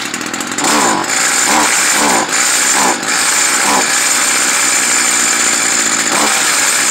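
Stihl FS 55R string trimmer's small two-stroke engine running. It is revved in about five short blips over the first four seconds, each falling away in pitch, and then runs steadily. The engine bogs when the throttle is hit, a fault that carburetor adjustment is not curing: the mechanic suspects it needs a new carburetor.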